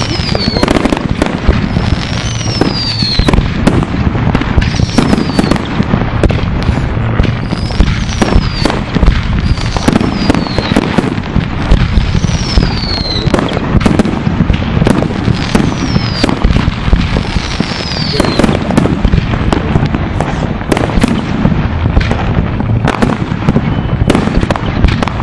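Many fireworks going off at once: a steady barrage of bangs and crackling, with about eight short whistles falling in pitch over it.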